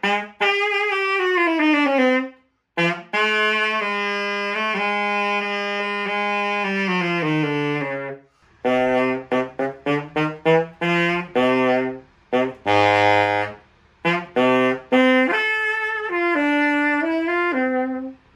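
Vintage Buescher tenor saxophone played solo as a play-test after repair: a note sliding down in pitch, a long held low note, then a phrase of short separate notes.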